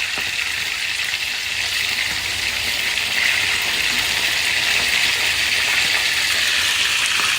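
Food frying in hot oil in a pan: a steady sizzle that grows a little louder about three seconds in.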